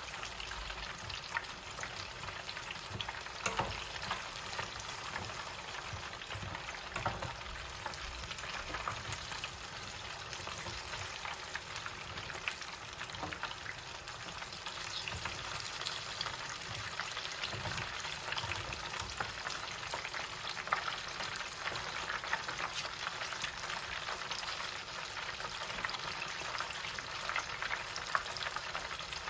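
Chicken pieces deep-frying in hot oil in an electric countertop deep fryer: a steady, dense crackling sizzle.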